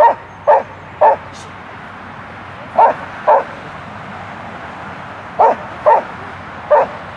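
A dog barking: eight short, sharp barks in groups of three, two, two and one, about half a second apart within each group.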